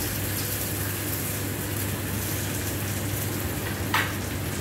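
Steady sizzle of pork loin and neck slices frying on a flat-top griddle, over a constant low hum, with a single sharp clink about four seconds in.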